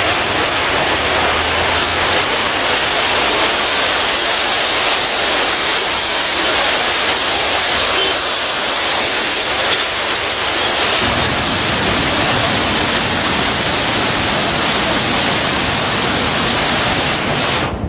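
Steady rush of floodwater pouring over a river weir, with wind rumbling on the microphone at times.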